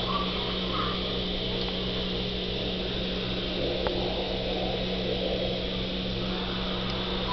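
Steady low mechanical hum with a regular pulsing throb beneath it and a couple of faint ticks.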